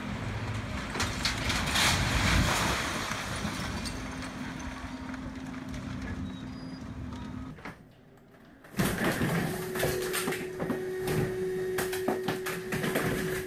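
Excavator demolishing a two-storey wooden building: the machine's engine drones steadily under the crash and rumble of the building coming down, loudest about two seconds in. After a brief lull, scattered sharp clicks and knocks over a steady tone.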